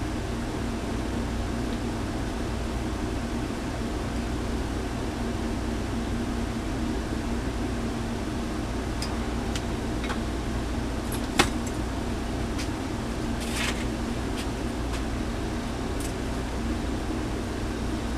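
Steady background hum, with a few light clicks and taps from small fan parts and wires being handled on a bench, the sharpest a little past the middle.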